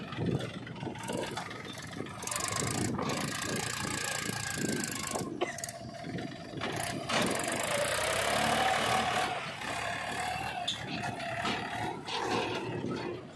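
Mahindra tractor's diesel engine running under load as the tractor drives through loose dirt, with short clatters; the engine note wavers up and down in pitch through the second half.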